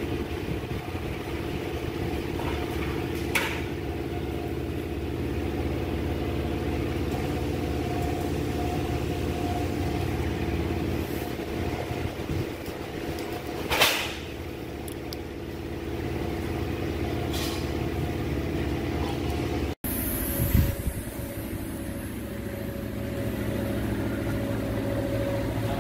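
Steady mechanical hum of workshop machinery running, with a few sharp clicks and knocks; the loudest comes about 14 seconds in.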